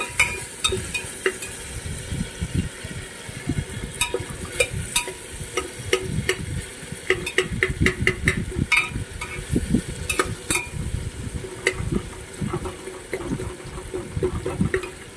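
A metal spoon stirring onion-tomato masala frying in oil in an aluminium pressure cooker, the tomatoes cooked soft. Repeated scrapes and clinks against the pot over a steady sizzle.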